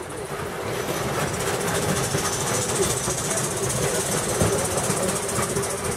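Live steam model locomotive running on the track: a steady hiss of steam with a fine rattling mechanical noise, swelling over the first second and then holding.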